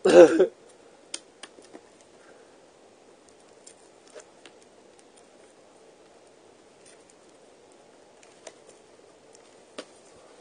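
Hands picking at the plastic shrink-wrap of a factory-sealed VHS tape, trying to get it open: faint, scattered clicks and scratches over a low, steady background hum.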